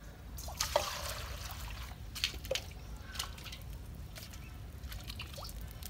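Water trickling and dripping, with a short splash about half a second in, then scattered drips and a few plinking drops.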